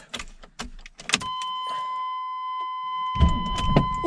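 Clicks and knocks, then a steady electronic warning tone from about a second in, and about three seconds in the Chevy S10's 4.3-litre V6 starts up and runs with a low rumble.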